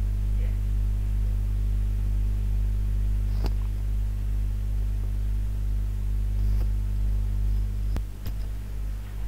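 Steady low electrical mains hum with a stack of overtones on the call's audio line, with a few faint clicks about three and a half seconds in and twice near the end.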